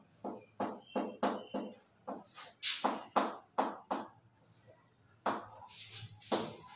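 Chalk writing on a blackboard: a quick run of short tapping, scratching strokes, about three a second, for the first four seconds. Two more strokes follow near the end.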